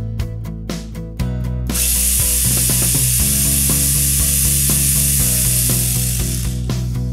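STIHL GTA 26 battery garden pruner running: its electric motor and small saw chain make a loud whirring hiss that starts abruptly about two seconds in and dies away near the end, over background music with a steady beat.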